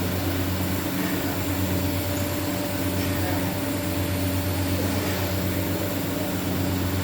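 Machinery in a steam-heated mawa plant running with a steady low hum and a faint higher tone that does not change.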